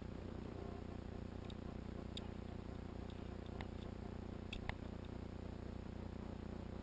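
A few faint, scattered clicks and ticks over a steady low background hum, the sharpest a little under five seconds in.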